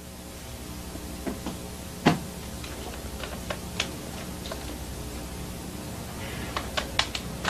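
Steady hum and hiss of an old tape recording with scattered light knocks and clicks, one louder knock about two seconds in, as a man moves about and sits down in a wooden rocking chair.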